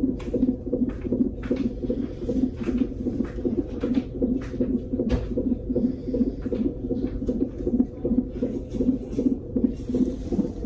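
Fetal heartbeat through a fetal monitor's Doppler ultrasound transducer: a fast, even whooshing pulse of about two and a half beats a second, with scratchy clicks over it.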